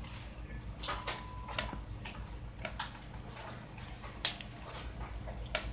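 Blue slime being stretched and squeezed in the hands, giving scattered small wet clicks and pops, with one sharper, louder click about four seconds in.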